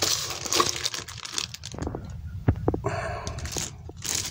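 Small plastic parts bags and a paper instruction sheet rustling and crinkling as they are handled, with a few sharp clicks about two and a half seconds in.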